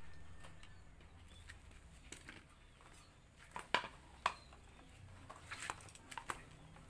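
Faint scattered clicks and taps, with two sharper clicks around the middle and a quick run of small ticks near the end.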